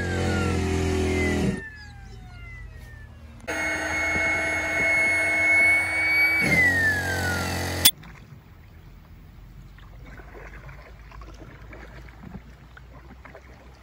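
Electric air pump, powered from the car through a corrugated hose, inflating an inflatable kayak: a steady motor whine that drops in pitch twice and cuts in and out between shots. About eight seconds in it gives way to a faint wash of river water around the kayak.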